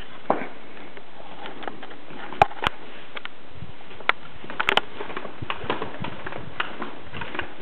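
A handheld camera being carried at a walk, giving scattered light clicks and knocks, a few of them sharp, over a steady hiss.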